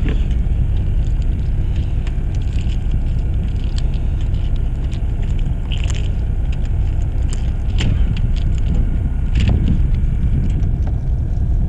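Steady low rumble on a fishing boat's deck, with scattered light clicks and knocks as a freshly caught octopus and an octopus jig rig are handled.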